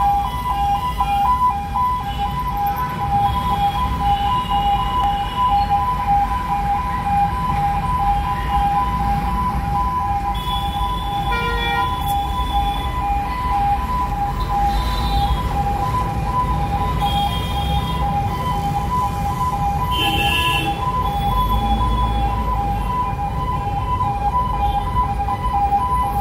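Ambulance's electronic siren sounding steadily in a two-tone pattern, rapidly alternating between two pitches, heard from inside the vehicle over its engine rumble. Traffic horns sound briefly a few times.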